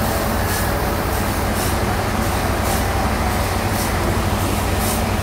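Large sawmill bandsaw running steadily with a constant low hum, and a high hiss that pulses about once a second.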